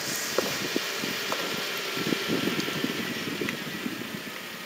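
Car travelling slowly along a wet road: steady tyre hiss with engine noise, growing quieter toward the end as the car slows.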